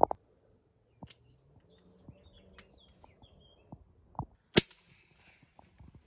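Two shots from a moderated .410 shotgun, the 'hushy'. The first, right at the start, sounds dull. The second, about four and a half seconds in, is sharper. A few lighter clicks come between them.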